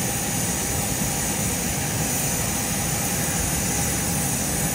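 Steady roar of airliner engines running, with a thin high whine over it.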